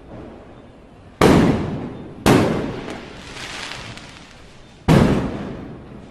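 Fireworks going off: three sharp bangs, about a second in, a second after that and near the end, each fading out over about a second.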